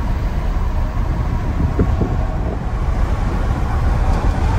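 Steady road and engine noise heard inside a moving vehicle's cabin at highway speed: a constant low rumble.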